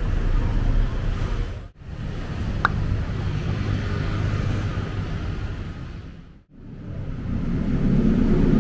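Low, steady rumble of city traffic and street ambience, with a brief high beep about two and a half seconds in. The sound drops out abruptly twice.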